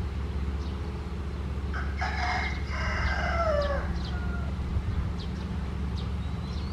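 A rooster crows once, a call of just under two seconds that ends in a falling note, over the steady low running of a heavy machine's engine.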